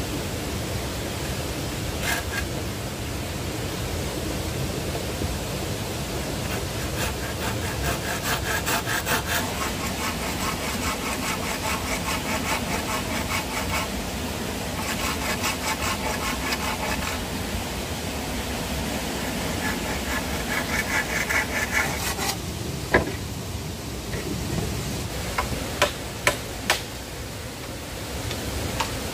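A small hand saw cutting bamboo in several bouts of quick back-and-forth strokes, over the steady rush of a stream. A few sharp knocks of bamboo near the end.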